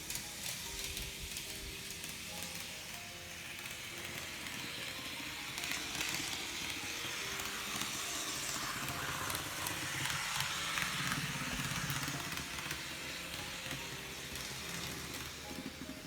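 Small electric model-train motor, a TOMIX M-9, running with a steady hissing buzz that swells in the middle and eases off near the end, under background music.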